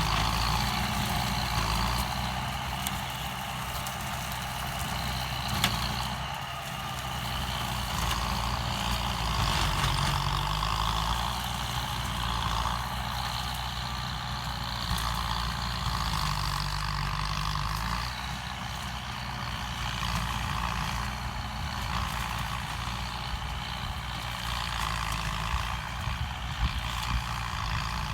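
Kubota M9540 tractor's diesel engine running steadily under load while its rotary tiller chops up pineapple stalks, the sound swelling and easing a little as it works.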